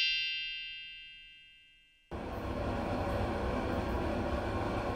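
A chime sound effect ringing out and fading away, then after a moment of silence a steady rushing noise with a low rumble cuts in suddenly and carries on.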